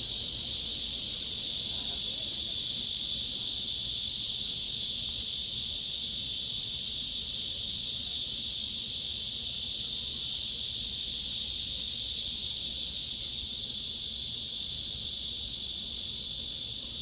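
Cicadas droning in a dense, unbroken high-pitched chorus that holds steady throughout.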